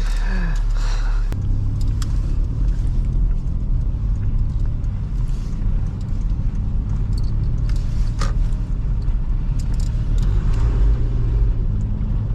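2005 Toyota Highlander driving on a snowy road: a steady low rumble of tyres and engine, with a few light clicks, the clearest about eight seconds in.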